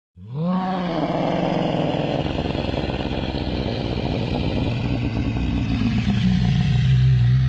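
Parasaurolophus call sound effect: a low, rough bellow that starts suddenly with a brief rise and fall in pitch, then holds as a steady, gravelly drone whose low hum grows stronger near the end.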